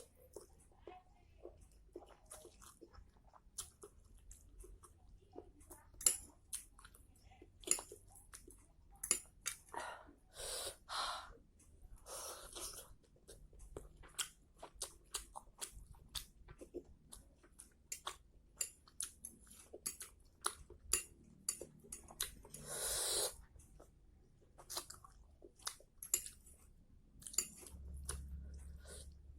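A person eating noodles close to the microphone: irregular wet chewing and lip smacks with a few short slurps and breaths.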